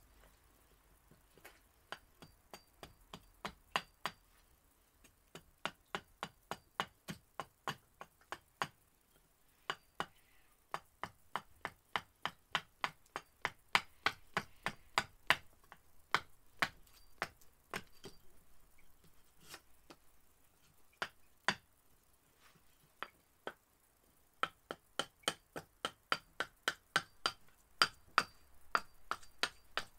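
Gransfors Bruk Large Swedish Carver axe hewing a split cherry spoon blank on a chopping stump: short, sharp chopping strikes into the wood, about three a second, in runs broken by short pauses.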